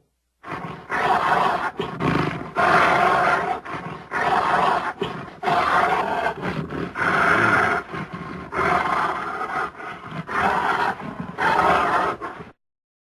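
A wild animal roaring: a long series of harsh roars, each about a second long with short breaks between, which stops abruptly near the end.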